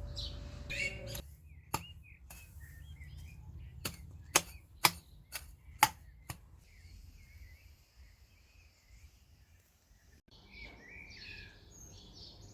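Small birds chirping in a garden. An insect buzz stops about a second in, followed by a run of about ten sharp clicks over the next few seconds; the chirping grows busier near the end.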